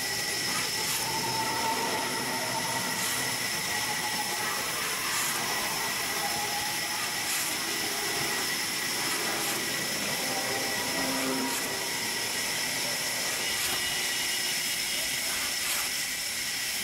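A long handmade two-man ripsaw cutting lengthwise through a large rain tree log by hand, with a rasping stroke about every two seconds.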